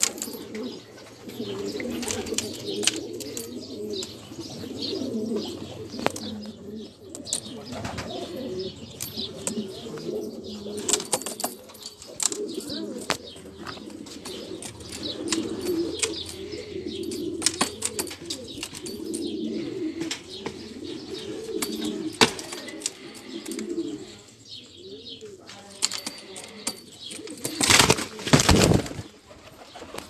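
Syrian domestic pigeons cooing over and over in low rising-and-falling phrases, with short clicks among them. Near the end there is a loud burst of wing flapping.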